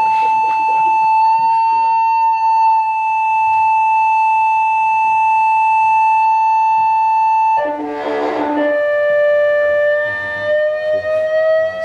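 Loudspeaker driving a Chladni plate with a test tone: a steady, high, flute-like note for about seven and a half seconds, then a brief harsh burst as the tone drops to a lower pitch, which then rises slowly as the frequency is swept upward.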